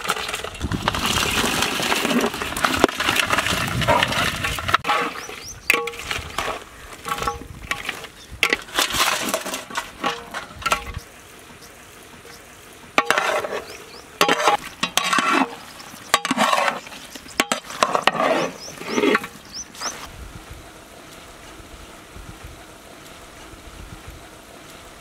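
Fried chicken pieces tipped from a steel bowl into a large pot of sauce, followed by a big metal ladle stirring the chicken in short scraping strokes against the pot, with clinks. The stirring stops about 20 seconds in.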